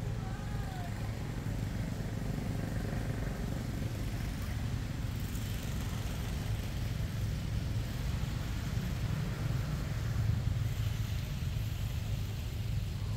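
Steady low outdoor rumble of background noise, with a few faint high squeaking glides in the first second.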